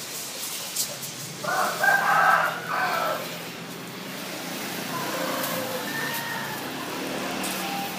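A rooster crowing loudly, one call of about a second and a half starting about one and a half seconds in, followed by a fainter crow in the second half.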